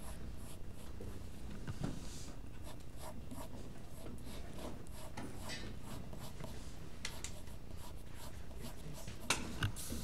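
Graphite mechanical pencil scratching across paper in short, quick sketching strokes, with one sharper click near the end.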